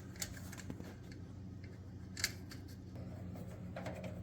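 Faint clicks of a hand screwdriver and small screws as the screws go back in to mount a stove cooktop burner control, with one sharper click about two seconds in.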